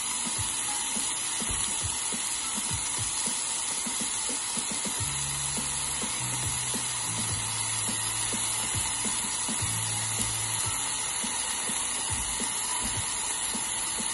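Chopped onion and grated coconut mix frying in hot oil in a nonstick pan: a steady sizzling hiss. A low hum comes in for about five seconds in the middle.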